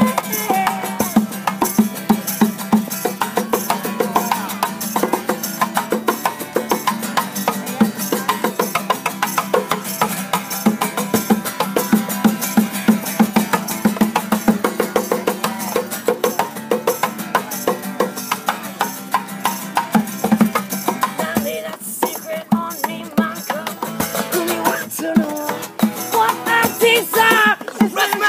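Music with a quick, steady rattling percussion beat.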